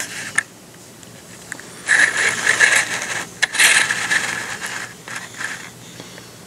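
Close rubbing and scraping handling noise near the microphone, coming in two long stretches about two and three and a half seconds in, with a few short clicks.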